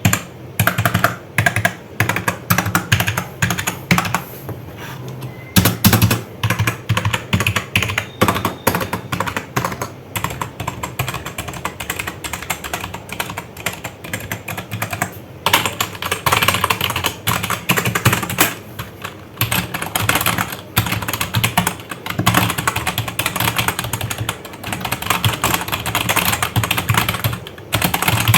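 Keys of an Evo Fox FireBlade TKL gaming keyboard being typed on as a sound test, clacking in separate strokes at first and in quick, continuous typing over the second half.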